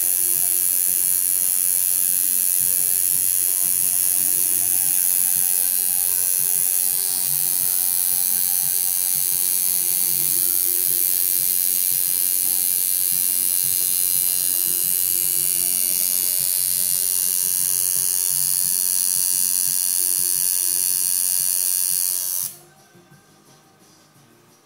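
Tattoo machine buzzing steadily as it works, cutting off suddenly near the end.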